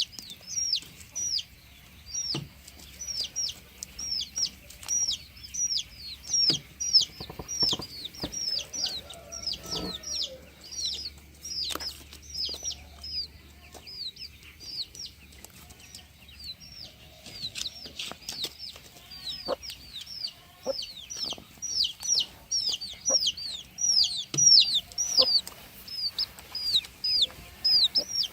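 Chicks peeping nonstop: many short, high, downward-sliding peeps, several a second and often overlapping, with a few faint knocks underneath.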